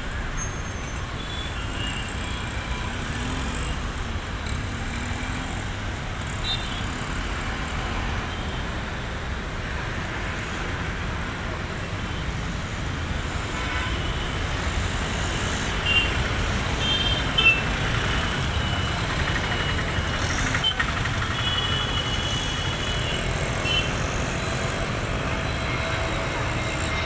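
Busy road traffic: a steady rumble of cars, with short horn toots now and then.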